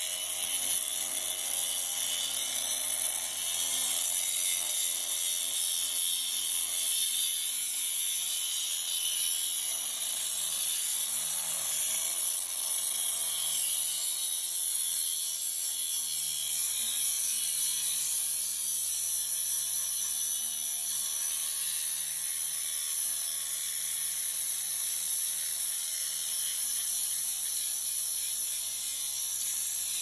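Angle grinder with a cut-off disc cutting into a metal disc lock: a steady, high-pitched grinding whine.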